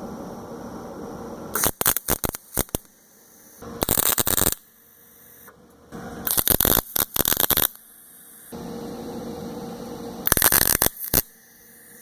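Eastwood MIG 135 wire-feed welder laying tack welds on 3/8-inch rebar: four short bursts of MIG arc crackle, each about a second long, with a steady hum between them.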